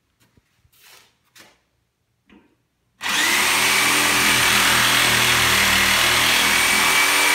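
A DeWalt DWE305 corded reciprocating saw starts abruptly about three seconds in and runs steadily at full speed, cutting into nailed pallet wood. It is preceded by a few faint handling clicks.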